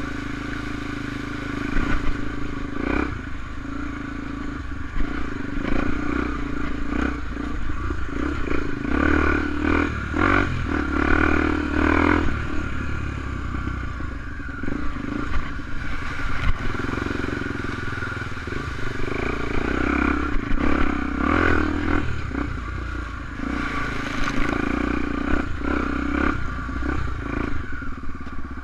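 Honda XR250 Tornado's single-cylinder four-stroke engine running while it is ridden off-road, its level and note shifting with the throttle. Clattering knocks and scrapes come at intervals, thickest a few seconds in, around the middle, and toward the end.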